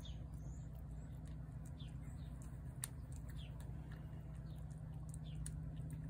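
A cat eating from a plate, with faint clicking sounds of chewing and licking throughout. Short falling bird chirps come every second or two over a steady low hum.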